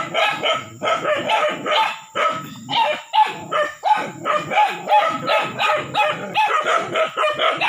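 Dogs barking rapidly and without let-up, a stream of short high barks at about five a second, as they bay at a cornered monitor lizard.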